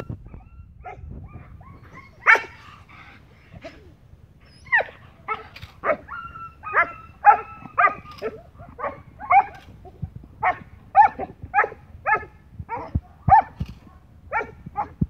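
German Shepherd on a leash barking at a decoy in protection training. The barks are sparse at first, then come in a steady run of about two a second from about five seconds in.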